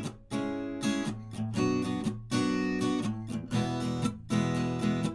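Background music: a guitar strumming chords, with repeated strokes.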